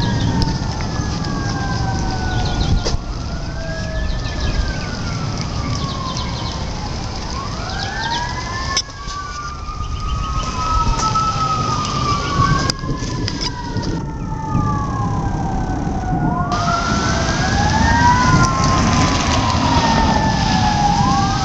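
Fire engine sirens wailing, several overlapping sweeps rising and falling in pitch, over a steady low rumble.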